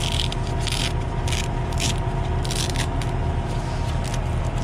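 Velcro hook-and-loop strips being torn apart as a fleece air-filter wrap is peeled off a semi truck's air-cleaner canister: a series of short rasping rips, about seven in all, over a steady low hum.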